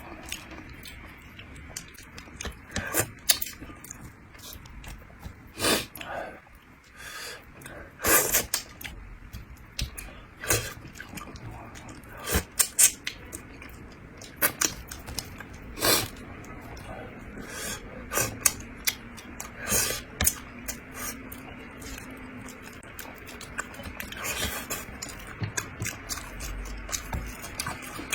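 Close-up eating sounds of a person working through a cooked bighead carp head: chewing, with irregular smacks and clicks several times a second.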